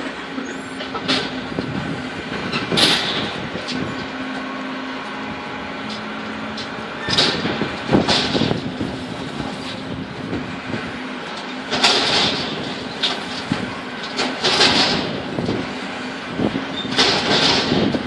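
Gusty wind blowing across the microphone, swelling into bursts every few seconds over a steady low hum.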